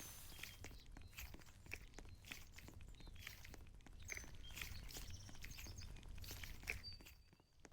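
Foam squishy toy being squeezed and kneaded, giving faint crackling and crunching made of many small, irregular clicks.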